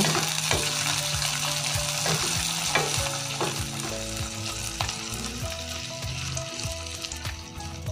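Sliced onions frying in hot oil in an aluminium kadai: a steady sizzle, with a wooden spatula stirring and scraping against the pan in scattered clicks. The onions are sautéing in a tempering of spices, partway to soft.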